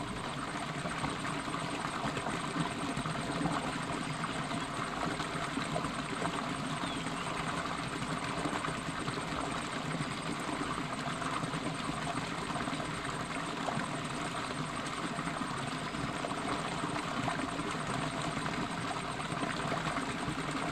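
A shallow stream running over rocks: a steady, even rush of water.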